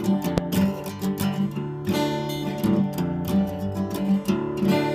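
Acoustic guitar strummed in a steady rhythm, an instrumental passage of a song with no singing.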